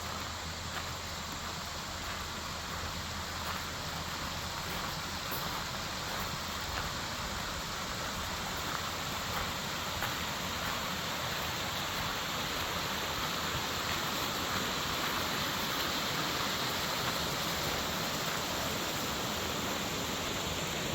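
Steady rush of running water from a stream, growing slowly louder.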